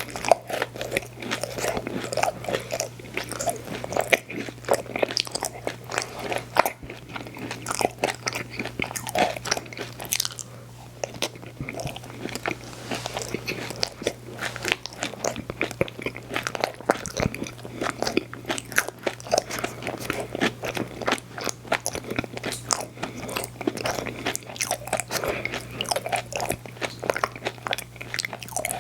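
Close-miked eating of a frozen ice cream sandwich: a steady stream of crunchy bites and wet chewing, irregular and continuous, over a steady low hum.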